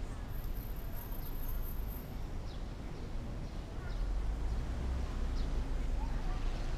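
Outdoor street ambience: a steady low rumble that swells about four seconds in, with short high bird chirps now and then.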